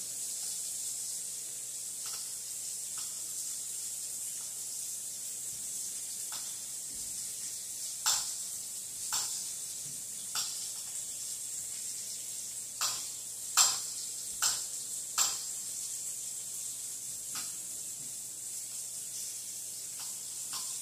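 Food sizzling steadily in a frying pan, with several sharp knocks in the middle stretch.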